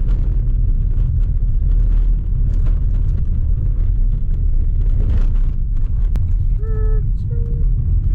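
Inside a car driving on a dirt road: a steady low rumble of tyres on gravel, with scattered knocks and clicks from stones and rattles. A brief pitched tone sounds twice about seven seconds in.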